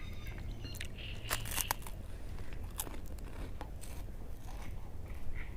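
Crisp crunching of someone biting into and chewing a wafer cookie, in a few irregular bites.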